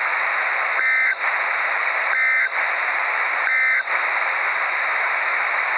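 Three short bursts of EAS SAME end-of-message data tones, a shrill buzzing two-tone chirp about 1.4 seconds apart, over a steady hiss of radio static.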